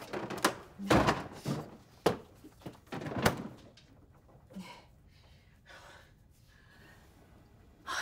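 A refrigerator door and the food containers in it being handled: several sharp thunks and knocks over the first three seconds or so. After that only faint small sounds are heard.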